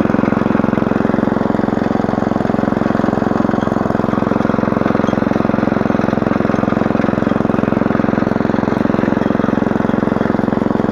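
Small air-cooled engine of a walk-behind rotary tiller running steadily under load as its tines cut through the soil between sugar beet rows, held at low throttle so the blades turn slowly and do not throw soil over the seedlings.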